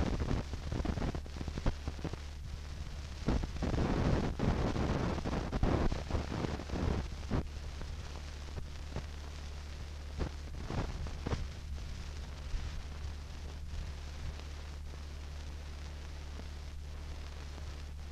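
Background noise of an old film soundtrack: a steady low hum with rumbling and scattered clicks and pops, busier for about the first seven seconds, then mostly the steady hum with an occasional click.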